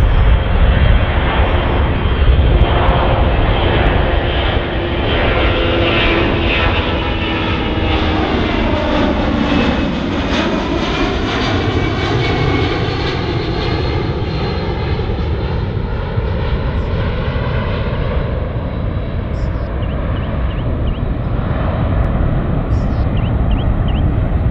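Boeing C-17A Globemaster III's four Pratt & Whitney F117 turbofans at climb power as the jet flies past and away: a loud, steady jet noise with a sweeping tone that dips to its lowest about ten seconds in, as the aircraft passes closest.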